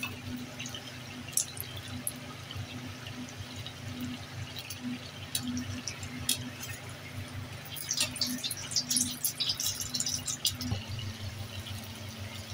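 Samosas deep-frying in hot oil: a steady sizzle with scattered pops and crackles, busiest a little past the middle, over a low steady hum.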